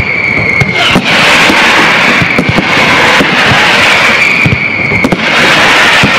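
Aerial fireworks display in a dense, loud, unbroken barrage of crackling and bangs. A steady high whistling tone sits in the mix at the start and again from about three and a half seconds in.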